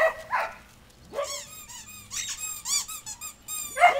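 Rubber squeaky dog toy being chewed, giving a quick run of high-pitched squeaks for a couple of seconds, after two short dog barks at the start.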